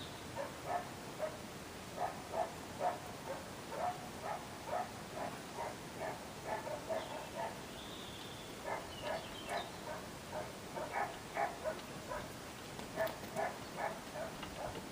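A dog barking over and over in short yaps, about two or three a second, easing off for a few seconds midway and then starting up again.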